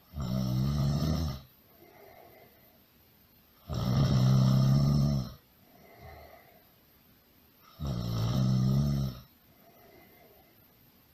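Loud snoring: three long snores about four seconds apart, each followed by a much softer breath out.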